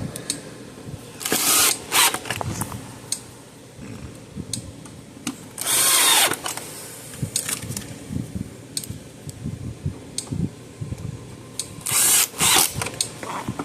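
Power drill-driver running in several short bursts, the longest about a second near the middle and winding down in pitch as it stops, driving screws back into the case of an electric fence energizer. Small clicks and knocks of handling come between the bursts.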